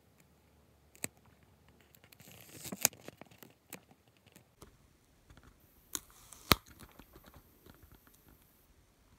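A paper sticker being peeled off its backing sheet, with a soft tearing and paper rustling, and a few sharp clicks as fingers handle the paper.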